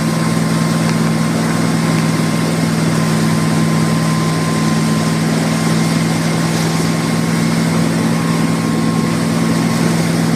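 Motorboat engine running at a steady speed, a constant low drone over a broad hiss.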